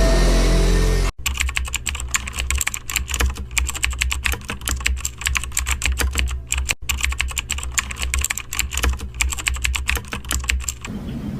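Rapid, continuous typing on a computer keyboard, a dense patter of key clicks with a brief pause near the middle, over a steady low hum. It starts with a hard cut about a second in, replacing music.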